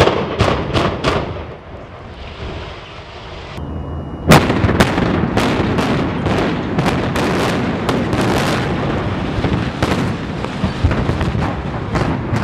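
Explosive demolition charges cutting a high-rise's supports, going off as a rapid string of sharp cracks; the first and loudest comes about four seconds in. A few blasts sound at the start, and the later cracks run over a continuous rumble as the building comes down.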